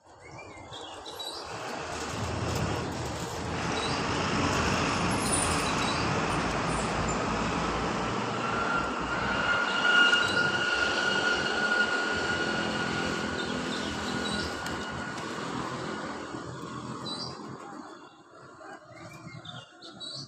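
A vehicle passes, its noise building over a few seconds, holding, then fading away, with a steady high-pitched squeal at its loudest. Faint bird chirps come near the start and end.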